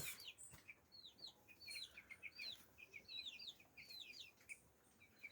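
Faint peeping of a flock of two-week-old broiler chicks: many short, high chirps, several a second, each dropping slightly in pitch.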